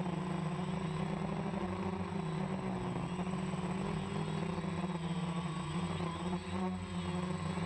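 Quadcopter drone's motors and propellers humming steadily, picked up by the camera mounted on the drone, with a thin high whine above the hum.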